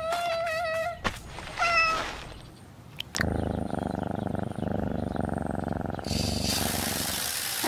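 A British Shorthair cat meows twice, a long wavering meow and then a short one, followed by about three seconds of steady purring. Near the end a rushing hiss sets in.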